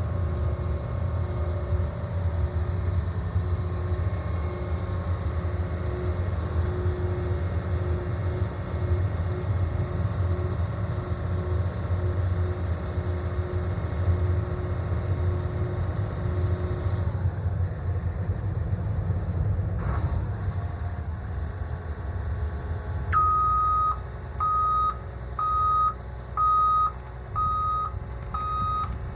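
Heavy diesel equipment engine running steadily, with a pulsing hum over it for the first half and a single sharp knock about two-thirds through. Near the end a reversing alarm starts beeping, about one beep every three-quarters of a second.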